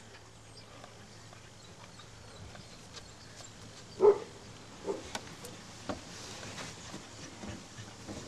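A dog barks once, loudly, about four seconds in, followed by a few fainter short sounds over the next two seconds.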